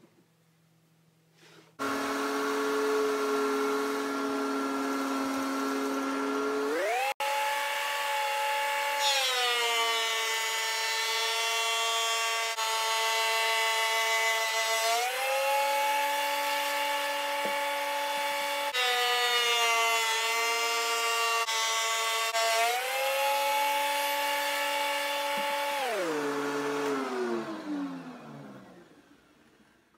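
DeWalt benchtop thickness planer running with a loud, steady whine whose pitch sags twice for several seconds as the fir stock feeds through the cutterhead. Near the end it is switched off and winds down, its pitch falling until it stops.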